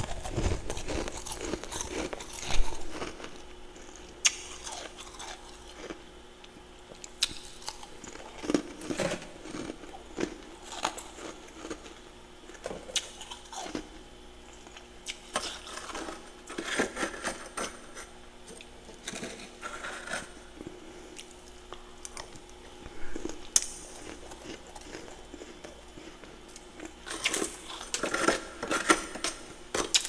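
Soft freezer frost crunched between the teeth and a metal spoon scraping frost off the inside walls of a mini freezer: scattered crunches and scrapes with quiet gaps, coming in busier clusters around the middle and near the end.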